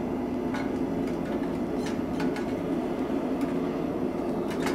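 Gas forge burner running with a steady rushing noise, with a few faint clicks as the bar is handled in the forge mouth.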